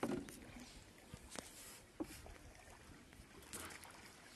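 A cast-net line being hauled in hand over hand on a wooden boat: a few light knocks on the boat and a short splash of water about three and a half seconds in.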